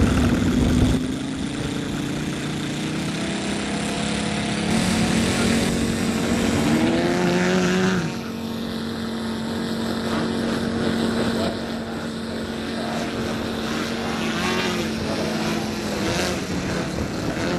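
Engines and propellers of large aerobatic RC model planes, running hard and rising and falling in pitch as the throttle is worked through the manoeuvres. There is a change in the sound about eight seconds in, where the footage cuts to another plane.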